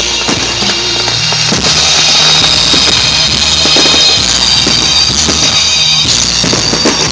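Loud music with a drum kit beat and a stepping bass line.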